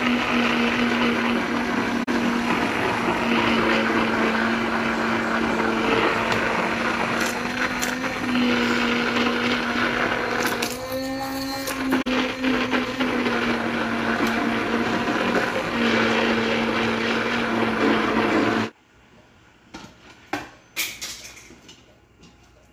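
Handheld immersion blender running steadily in a bowl of boxed cake-mix batter, its motor hum wavering slightly in pitch as it works the mix. It cuts off suddenly about 19 seconds in, leaving a few faint knocks.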